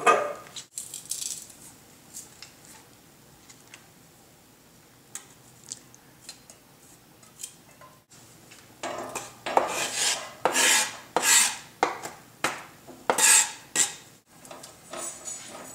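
A utensil scraping chopped onion and garlic off a plastic cutting board into stainless steel pans, with a knock at the start and scattered light clinks of pans and utensils, then a run of loud rasping scrapes, about two a second, in the second half.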